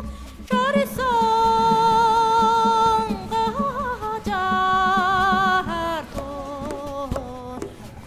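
Background music: a melody of long held notes with a wavering vibrato, changing pitch every second or so, over a steady low pulse.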